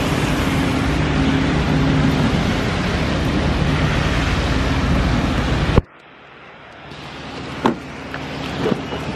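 A car driving: steady road noise with a low engine hum, which cuts off abruptly about six seconds in. A much quieter background follows, with a single short click about two seconds later.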